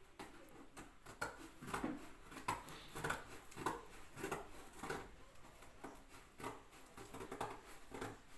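Cardboard being cut by hand: a regular run of short cutting strokes, about one every half second or so.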